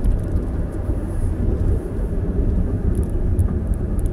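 Steady low rumble of a car in motion, its engine and tyres on the road, heard from inside the cabin.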